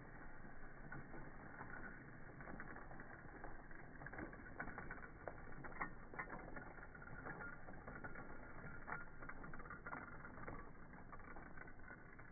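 OO gauge model train running past on its track, the wheels giving many irregular light clicks and rattles over a faint steady mechanical noise.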